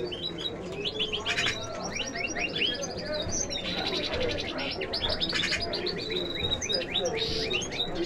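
A chorus of caged songbirds chirping, many short quick notes overlapping, with a couple of fast buzzy trills, over a low background murmur.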